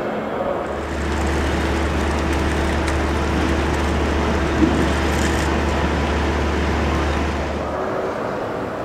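Low, steady vehicle rumble over a wash of noise, which sets in about a second in and drops away near the end, with a single brief click about halfway through.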